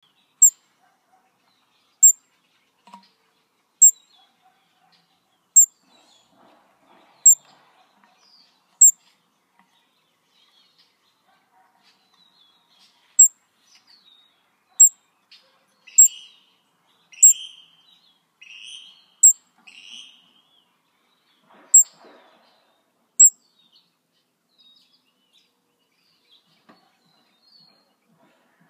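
Baby hummingbird chipping: a series of sharp, very high single chips, about one every one and a half to two seconds, pausing for a few seconds in the middle and stopping near the end. Softer, lower chattering chirps come in among the chips in the middle.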